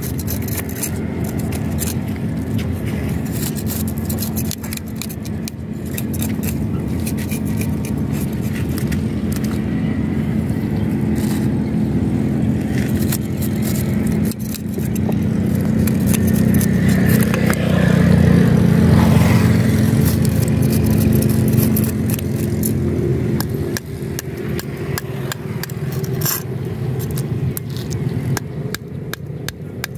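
A knife blade scraping the scales off a whole tilapia on concrete, a rapid run of short rasping scrapes and clicks. Under it runs a steady low motor rumble that swells to its loudest about halfway through.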